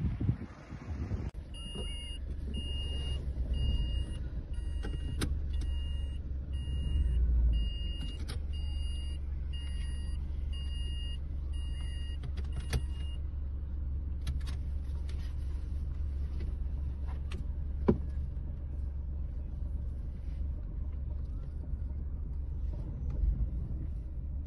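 Car interior: steady engine and road rumble as the car creeps along. A high electronic warning beep repeats about once or twice a second for roughly the first half and then stops, with a few light clicks.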